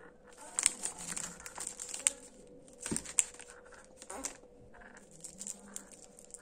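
Plastic snack bags and sweet wrappers crinkling as a hand moves the packets about, in irregular bursts with a few sharp crackles.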